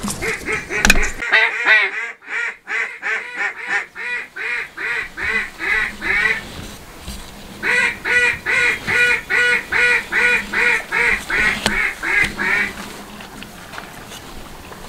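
Duck call blown in two long runs of quacks, about three a second, with a pause between them: hunters calling to passing ducks to bring them in.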